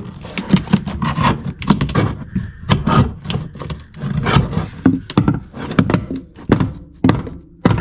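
Hammer striking a section of wall from behind to knock it loose, a long irregular series of knocks, about two a second.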